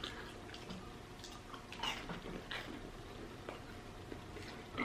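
Faint, scattered mouth sounds: a handful of small lip smacks and clicks about half a second to a second apart.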